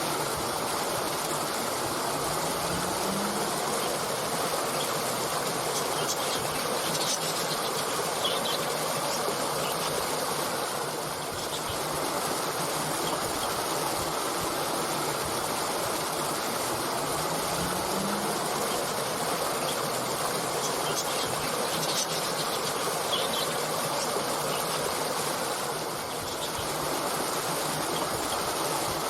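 Small water stream flowing steadily, with a few faint, brief bird chirps.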